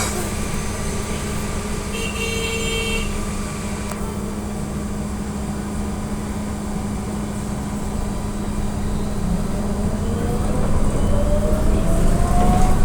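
Inside an AKSM-321 trolleybus: a steady electrical hum, a short beep-like tone about two seconds in, then from about ten seconds a rising whine from the electric traction drive as the trolleybus pulls away and picks up speed.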